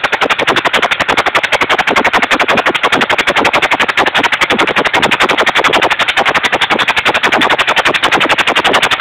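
A 16 hp engine running on biogas and driving a 7.5 kW generator, with a rapid, even beat that holds steady.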